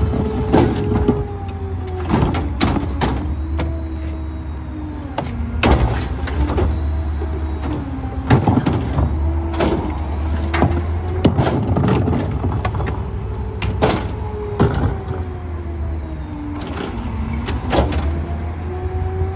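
Rear-loader garbage truck's engine and hydraulic packer running, a whine that falls and rises in pitch several times over a steady low engine hum, with frequent metal clanks and bangs of bins and trash.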